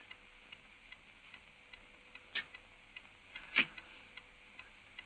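A clock ticking faintly and evenly, about two or three ticks a second, with two louder knocks partway through.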